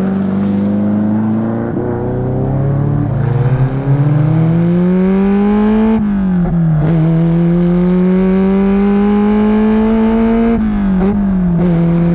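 Ferrari 308 GTB Group 4 rally car's V8 engine accelerating hard, its pitch climbing through the revs. It shifts up twice, about halfway through and again near the end, the pitch dropping at each shift before it climbs again.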